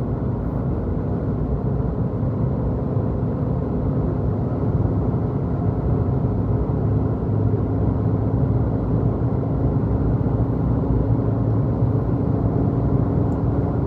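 Suzuki Jimny's petrol engine and road noise heard from inside the cabin while accelerating at highway speed past 100 km/h: a steady low rumble with an engine drone that slowly grows louder. No whistle or roar from the roof rack: the wind deflector has cured its wind noise.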